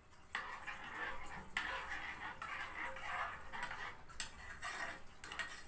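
Metal spoon stirring a thick rice-and-milk mixture in a small metal saucepan, scraping the pot in repeated strokes from shortly after the start, with a couple of sharp clinks of spoon on pot.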